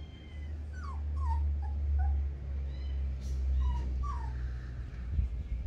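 Husky puppy whimpering: several short, high, falling whines, a cluster about a second in and two more near four seconds, over a steady low rumble.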